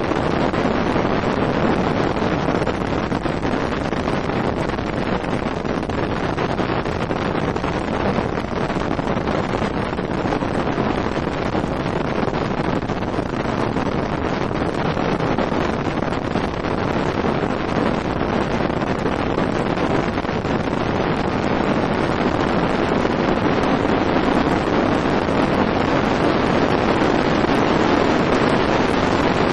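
Steady rush of wind on the microphone aboard a bass boat running across the water, with the boat's motor and hull noise underneath, growing slightly louder near the end.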